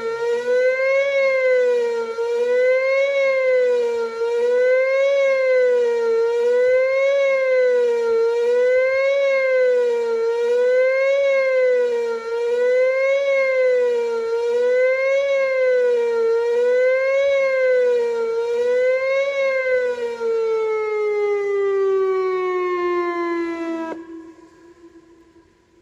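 Whelen WPS-2910 electronic outdoor warning siren sounding the attack signal, a tone rising and falling about once every two seconds. Near the end the tone glides down in pitch for a few seconds and then cuts off abruptly.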